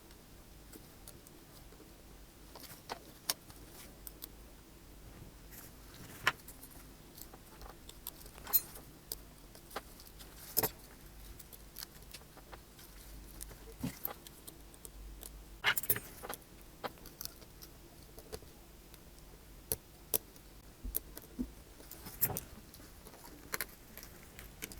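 Faint, scattered small clicks and taps of a smartphone being reassembled by hand: internal parts handled and flex-cable connectors pressed into their sockets on the board.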